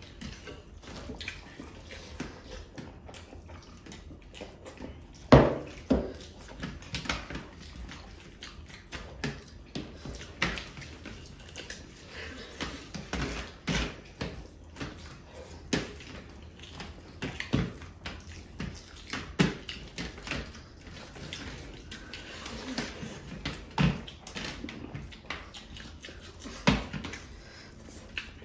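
Two people eating rice and fish curry by hand from steel platters: wet squelching and smacking of fingers working the rice and of chewing, with irregular clicks and knocks. The loudest knock comes a little past five seconds in.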